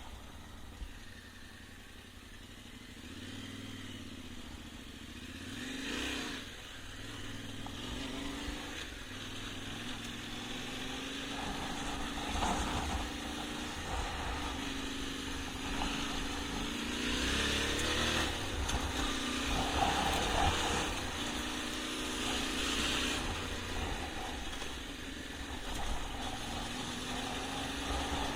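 Yamaha Ténéré 700's parallel-twin engine riding off-road, its pitch rising and falling again and again as the throttle opens and closes, over a steady low rumble. It grows louder after the first few seconds.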